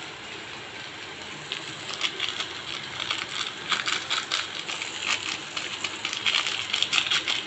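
Chopped onion and tomato frying in oil in a kadai: a steady sizzle that turns into dense, irregular crackling about a second and a half in.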